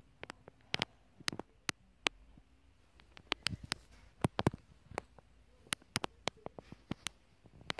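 Handling noise of a hand-held phone being moved about: irregular sharp clicks and light taps, a dozen or more, with short gaps between them.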